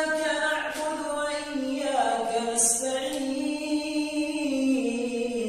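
A man reciting the Quran in the melodic, drawn-out tajweed style, unaccompanied and without microphone or reverb effects. One long phrase is held on a single breath, moving slowly between sustained notes, and it fades near the end.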